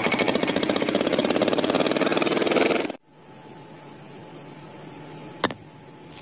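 Small electric motor of a DIY mini tractor running with a fast, rough whirring buzz that cuts off about three seconds in. A quieter stretch follows, with one sharp click near the end.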